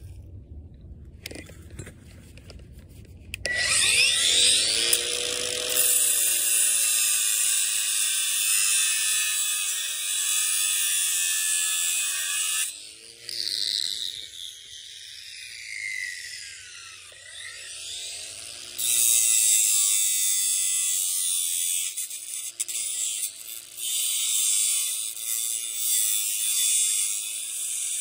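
Angle grinder with a cut-off wheel starting up about three and a half seconds in and cutting metal bolts on an engine block, then spinning down with a falling whine a little after halfway. It starts again near the end and cuts once more.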